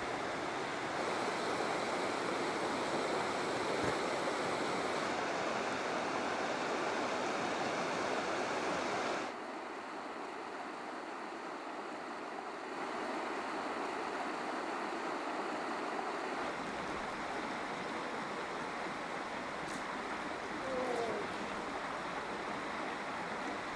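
Steady rushing of a shallow mountain river running over rocks. It drops to a quieter level about nine seconds in, then picks up a little.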